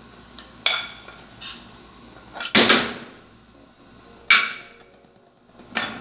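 Metal spoon knocking and scraping against an aluminium saucepan and a glass bowl: a handful of sharp clinks, with a louder ringing clank about two and a half seconds in and another near the middle.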